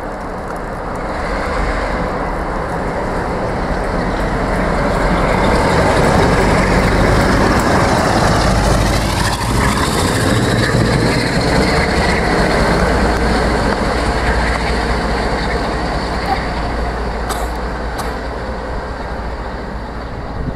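Class 47 diesel locomotive's Sulzer twelve-cylinder engine thrashing at full power as the locomotive runs light through a station: the sound builds as it approaches, is loudest as it passes about halfway through, then fades as it draws away, with wheel noise on the rails.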